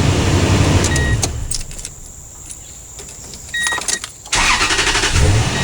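Toyota Tundra engine idling, then switched off about a second in; in the quiet come a couple of short high beeps and some clicks. Near the end the starter cranks and the engine catches quickly and settles back to idle, starting readily on a freshly fitted battery.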